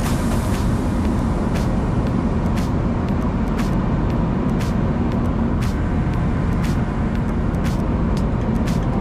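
Fishing boat's engine running steadily, a constant low drone, with a sharp tick about once a second.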